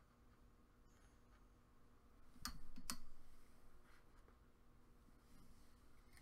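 Two sharp clicks about half a second apart, near the middle, against an otherwise quiet background, from handling a small Phillips screwdriver and the plush toy's plastic battery sound box.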